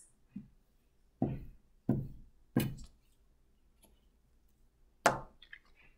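Glue stick rubbed and dabbed against paper on a table in four short strokes about two-thirds of a second apart. Near the end comes a sharp click, followed by a few small ticks.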